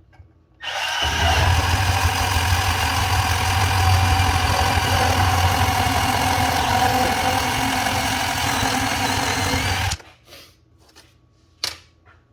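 Milwaukee M12 12-volt cordless bandsaw running steadily as it cuts through schedule 40 pipe, starting just under a second in and cutting off suddenly after about nine seconds. It sounded like it was getting a bit tired, a sign that its battery is running down. A couple of sharp knocks follow near the end.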